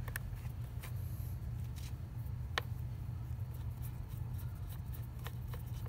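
Faint clicks and scrapes of a screwdriver turning a battery terminal bolt counterclockwise to seat its fine threads, with one sharper click about two and a half seconds in, over a steady low hum.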